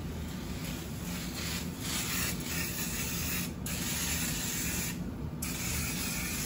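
Aerosol can of Woolite one-step foaming carpet cleaner spraying onto carpet: a hiss that starts about a second in and runs in three long sprays, with two short breaks near the middle and toward the end.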